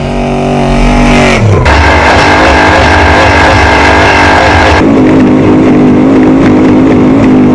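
Trophy truck race engine at speed: its pitch falls over the first second and a half as it passes, then it runs hard at steady high revs. The tone changes abruptly about a second and a half in and again near five seconds.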